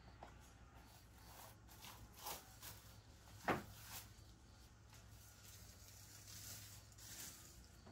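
Quiet room tone with a steady low hum, a few faint rustles and clicks, and one sharper tap about three and a half seconds in.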